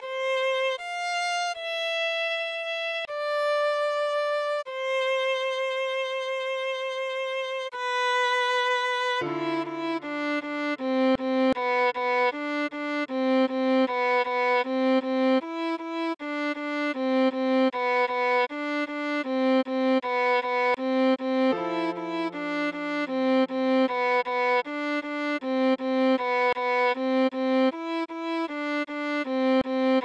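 Viola playing a melody alone. It begins with slow, long held notes, then turns to a fast run of short notes at about four a second, while a low note is held beneath twice.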